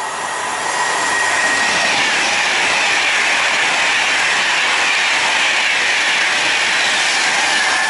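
Virgin class 390 Pendolino electric train running through the station at speed. A loud rush of wheel and air noise builds about a second in and holds steady, with a high whine that slowly drops in pitch.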